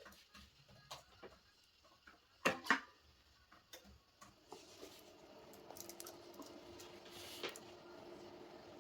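Scattered clicks and taps of small parts and tools being handled on a workbench, with two louder sharp clicks about two and a half seconds in. About halfway through, a steady hum with one low tone starts and keeps going.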